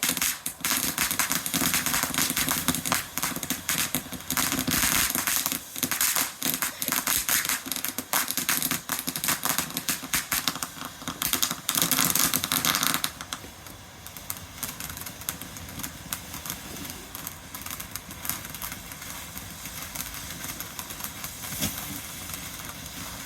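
Crackling fireworks: a dense, rapid run of sharp pops and crackles that cuts off about halfway through, leaving a much quieter background.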